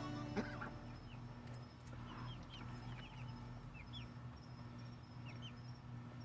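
Faint high peeping of young poultry: about a dozen short chirps, scattered through, over a low steady hum.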